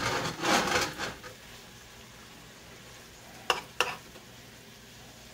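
Metal tongs scraping and turning shrimp in a nonstick skillet for about the first second, then two sharp clicks of the tongs on the pan about three and a half seconds in. Under it, the shrimp sizzle faintly as they fry slowly over low heat.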